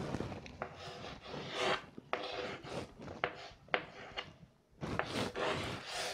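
Chalk scratching and tapping on a chalkboard in a series of short strokes as a letter is written, with a brief pause a little past the middle.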